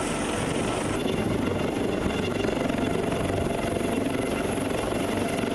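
Helicopter rotor and engine running steadily as the helicopter hovers low over a ship's flight deck.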